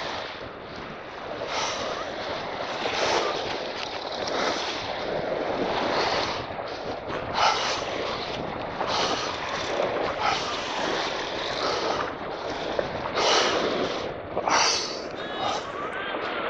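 Wind buffeting the microphone in uneven gusts, over small waves washing up and draining back on a gravel beach.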